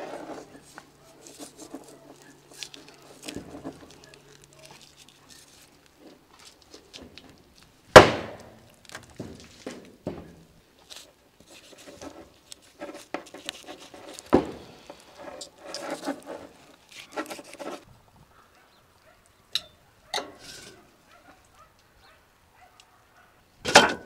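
A large knife cutting through the skin and tendons of a raw ostrich leg on a wooden table, with scattered soft cutting and handling sounds and a few sharp knocks: the loudest about eight seconds in, another about six seconds later, and one near the end.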